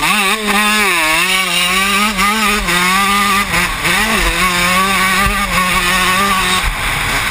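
Motocross bike engine running hard, its pitch swooping up and down with the throttle through a corner, holding steady on the straight with a brief dip about four seconds in, then falling away as the throttle closes near the end. Wind rushes past the helmet camera.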